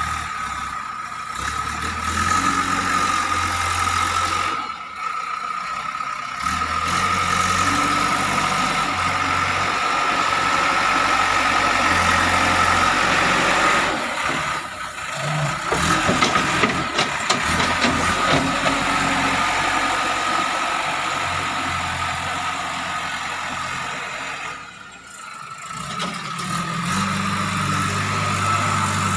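JCB 3DX backhoe loader's diesel engine running through its soil-filling work, with a steady high whine over the engine. The engine note shifts with load and drops away briefly twice, about five seconds in and near the end.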